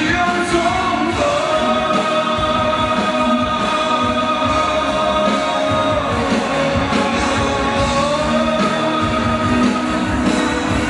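A male singer holds two long, high notes into a microphone over backing music with a steady beat; the singing stops near the end while the music plays on.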